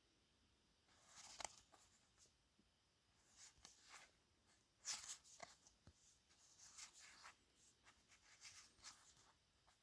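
Faint rustling and sliding of cardboard warscroll cards being handled and leafed through, in several short scrapes.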